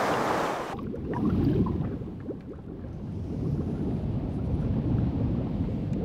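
Sea ambience: a hiss of surf that cuts off abruptly under a second in, giving way to a muffled, low water rumble.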